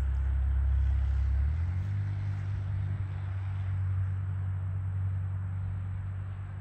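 A low, steady engine hum from a vehicle, its pitch stepping up about a second and a half in.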